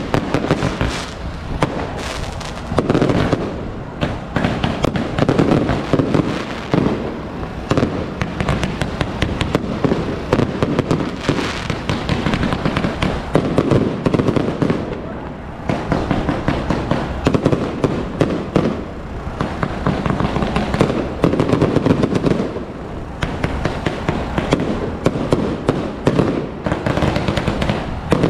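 Continuous barrage of firecrackers and rocket fireworks: loud, rapid, overlapping bangs and crackling that never lets up.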